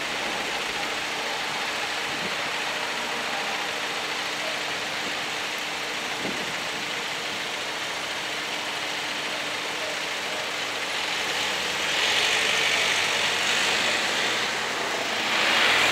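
Car engines idling in a stopped queue with a steady hum. Near the end, cars pull away and pass close by with rising tyre and engine noise.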